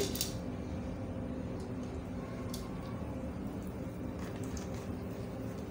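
Quiet, steady kitchen background hum with a few faint light ticks, heard as oil goes over dry popcorn kernels in an iron wok.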